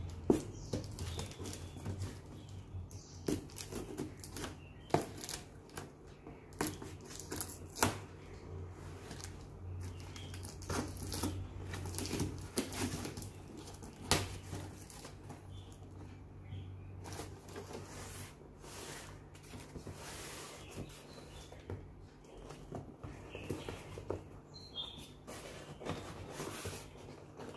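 Cardboard shipping box being handled and cut open by hand: irregular rustling, crackling and tapping of cardboard and packing tape, with several sharp snaps, the loudest about fourteen seconds in. A steady low hum runs underneath.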